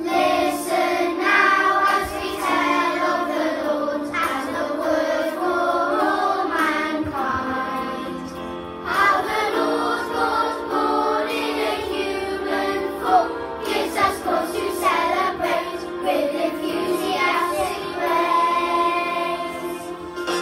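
A children's choir singing together over an instrumental accompaniment, with a short pause between phrases about halfway through.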